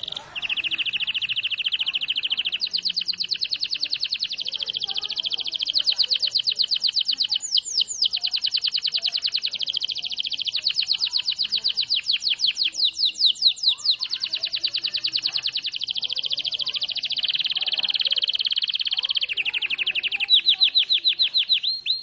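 Domestic canary singing a long, unbroken rolling song: fast high trills running straight into one another at changing speeds, with a few slower, louder down-slurred notes near the end.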